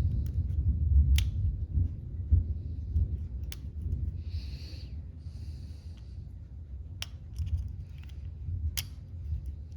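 Metal lock pick working the pins of a pin-tumbler lock: scattered sharp metallic clicks over low handling rumble, with two short scraping hisses about four and five seconds in.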